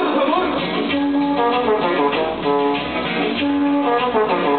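Cumbia with horns and guitar played loudly over a dance-hall sound system, held horn notes recurring between shorter melodic phrases.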